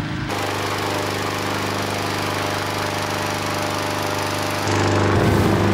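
Engine-driven balloon inflator fan running steadily, blowing cold air into a hot-air balloon envelope during cold inflation. It gets abruptly louder about four and a half seconds in.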